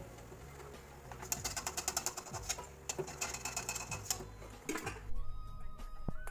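Hot oil crackling and spitting in a steel kadai as fried fritters are lifted out with a metal spatula, in quick clusters of sharp pops with the spatula scraping the pan. Music comes in near the end.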